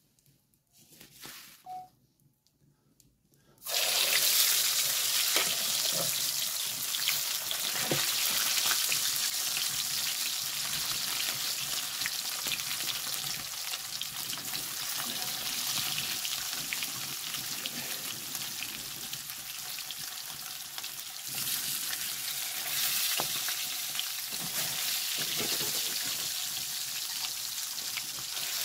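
Fish frying on a metal griddle over a wood fire: a steady sizzle with small crackles. It comes in suddenly after a few seconds of near silence.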